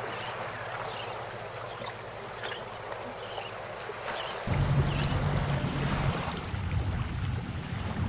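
Many short, high bird chirps over a steady hiss; about four and a half seconds in, a motorboat's engine comes in as a low, steady hum under the rush of water.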